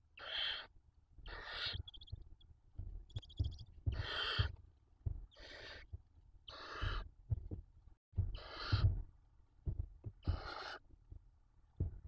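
Barn owl chicks begging with a series of about seven harsh, rasping hisses, each about half a second long, coming every second or two. A couple of short higher chirps come between them, and there are soft low knocks and scuffs from the birds moving on the nest floor.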